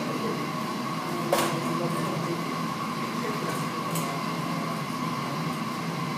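Steady mechanical hum with a constant mid-pitched tone, broken by one sharp click about one and a half seconds in and a faint tick near four seconds.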